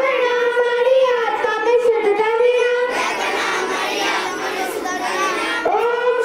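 A large group of schoolchildren singing a prayer in unison, holding long notes that waver slowly in pitch, with a new phrase starting near the end.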